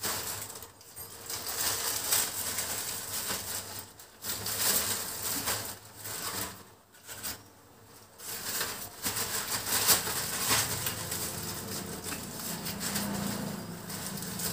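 Plastic bags rustling and crinkling in irregular bursts as fried papads are packed into them and the bags are tied, with a few short pauses.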